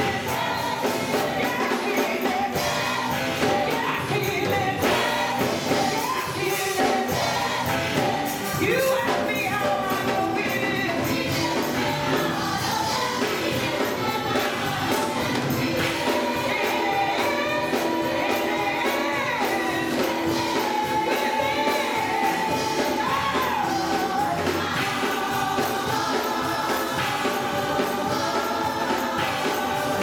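Gospel choir singing to a steady beat.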